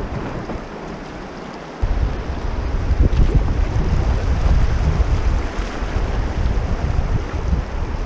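Shallow river water rushing over rocks around the canoe's bow, with wind buffeting the microphone; the low wind rumble is weak for the first two seconds, then comes back suddenly.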